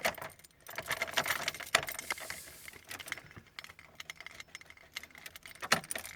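Keys on a keyring jangling and clicking as the key is wiggled and tugged in the ignition lock, where it is stuck and won't come out. The jangling comes in a burst in the first two seconds and again near the end.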